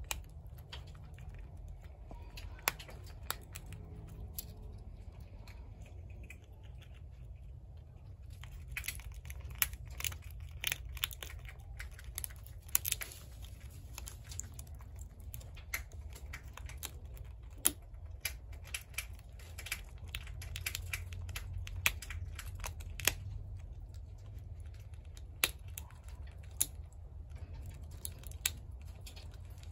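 Eastern gray squirrel gnawing a walnut shell with its teeth and cracking pieces off: irregular sharp cracks and crunches, busiest around the middle, over a low steady hum.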